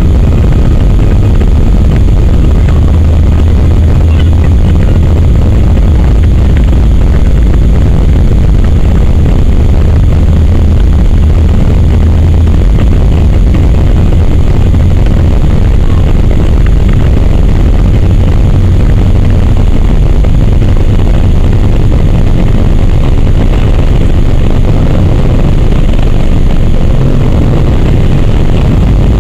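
Airbus A319's twin jet engines at takeoff thrust, heard from inside the cabin over the wing. They make a loud, steady, deep rumble, mixed with runway rumble, as the airliner accelerates down the runway on its takeoff roll.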